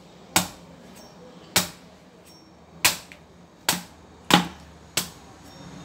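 Six sharp blows struck on a small dwarf coconut to open it, irregularly spaced about a second apart.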